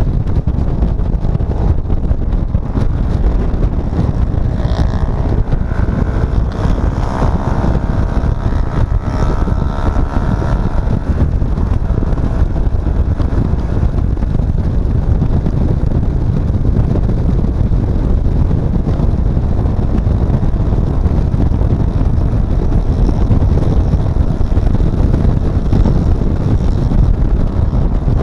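Road vehicle on the move: steady engine and road noise, heavily buffeted by wind on the microphone.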